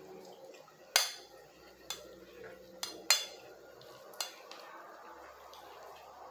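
Metal fork clinking and scraping against a plate while food is scooped up: about five sharp clinks, the loudest about a second in and about three seconds in.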